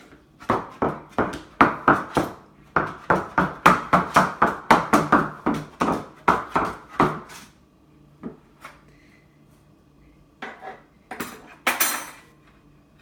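Dishes and cutlery clattering as a dishwasher is unloaded: a quick run of sharp clinks, about three or four a second, for the first seven seconds or so, then a few separate knocks and clinks near the end.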